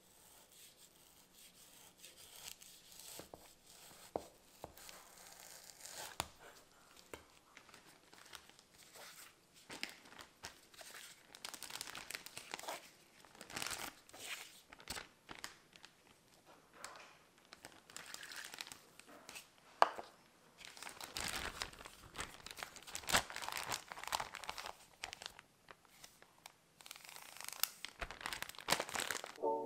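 Thin plastic crinkling and rustling in irregular bursts as disposable plastic food-prep gloves and a zip-top plastic bag are handled, with one sharp tap about two-thirds of the way through.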